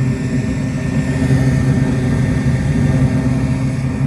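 Trane Precedent rooftop package unit running steadily in heating mode, with a constant low motor and blower hum.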